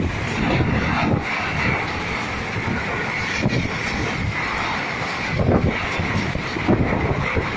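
Storm-force wind blowing in uneven gusts, buffeting the microphone with surging low rumbles.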